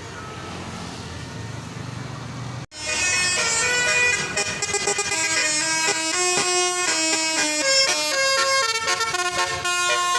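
Bus 'telolet' basuri musical horn playing a tune of several notes, each a stack of horn tones stepping from pitch to pitch. It starts abruptly about three seconds in, after a brief break that follows a quieter stretch of low background noise.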